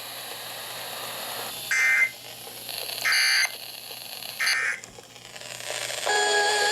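Three short digital data bursts of the Emergency Alert System end-of-message code, each about a third of a second long and a little over a second apart, closing a NOAA Weather Radio severe thunderstorm warning, with radio hiss between them. About six seconds in, a steady tone with several pitches starts and holds.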